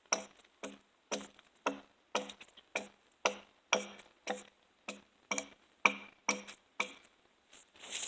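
An axe striking a log again and again, about two blows a second, each with a short ring. It is chopping the bark off the log's side so that dirt and grit in the bark don't dull the milling chain.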